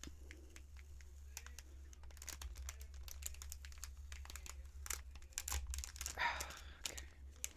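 Paper sticker being slowly peeled off its backing: faint crackling and light ripping made of many small clicks, a little stronger about six seconds in.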